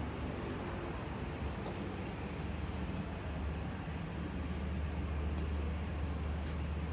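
Steady outdoor city background noise: a low rumble with a few faint ticks, with no single clear source.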